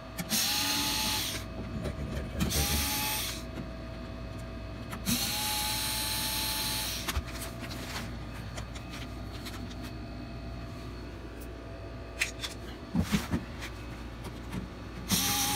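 Cordless drill-driver running in three short bursts, each a steady motor whine, as it backs screws out of the air fryer's sheet-metal housing. A few light knocks follow near the end.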